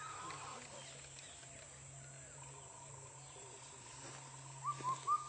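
Indian cuckoo singing its four-note call ('kothal pokok', 'bou kotha kou'), clear short whistled notes heard once near the end, with the last notes of a previous call at the very start. A faint steady drone runs underneath.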